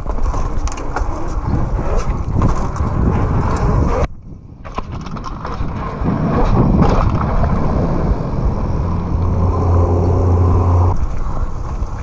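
Downhill mountain bike ridden fast over pavement: knobby tyres rumbling, with rattles and clicks from the bike. It goes briefly quieter about four seconds in, then a steady low hum sets in and stops suddenly near the end.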